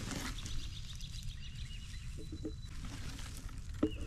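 Dry straw and chicken-coop compost rustling as a gloved hand scoops it from a plastic tub and spreads it over garden soil, over a steady low background rumble. A bird chirps faintly in a quick run early on, and there is a sharp tap just before the end.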